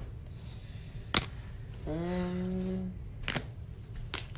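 A few separate sharp clicks, and about two seconds in a short, steady hummed 'mm' from a person lasting about a second.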